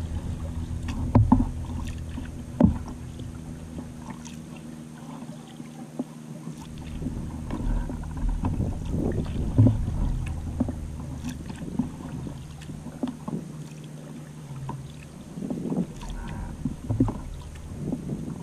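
Kayak paddling: the paddle blades splash and drip water with each stroke, with a few sharp knocks on the wooden kayak over a steady low rush of water along the hull.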